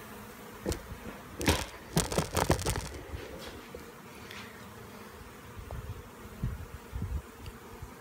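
Honey bees buzzing steadily. A cluster of loud knocks and rubs close to the microphone comes about one and a half seconds in, and softer low thumps come near the end.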